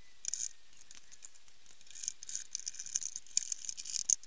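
Phillips screwdriver driving a small screw into the plastic bottom cover of a Roborock robot vacuum. A brief rattle of handling comes near the start, then a run of quick, scratchy clicks from about two seconds in as the screw turns.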